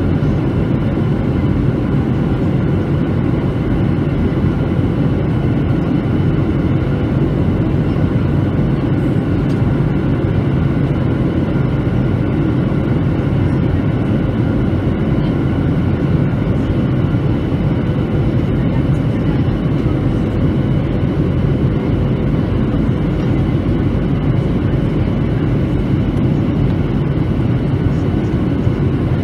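Steady cabin noise inside a Boeing 737-900 airliner on approach, heard from a window seat over the wing: its CFM56-7B engines and the airflow make an unbroken, mostly deep noise, with a few faint steady whine tones above it.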